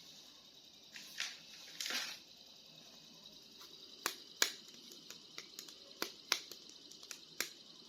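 Small plastic toy figures and packaging being handled: two short rustles, then a scatter of light, sharp clicks.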